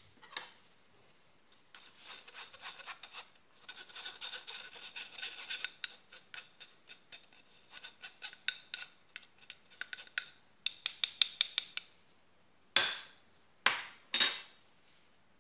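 Fine-mesh stainless steel sieve shaken and tapped over a stainless steel bowl to sift cocoa powder: quick rattling metal taps for about ten seconds, then three louder knocks near the end.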